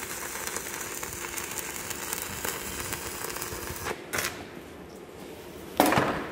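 Electric arc welding on a steel plate: a steady crackle of the arc with spatter, stopping about four seconds in. A sharp knock near the end.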